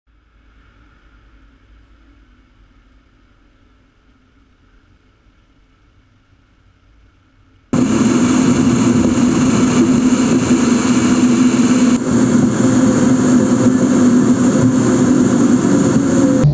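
Car driving on the road: a faint steady hum at first, then loud steady road and engine noise that cuts in abruptly about eight seconds in.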